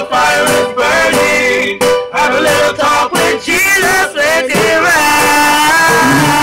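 Men singing live into a microphone through a small amplifier, backed by an electronic keyboard, with a long held note near the end.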